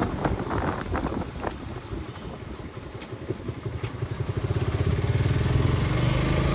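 Suzuki motorcycle's engine running as it is ridden, with road noise; about four seconds in the engine sound grows louder and its even firing pulses stand out.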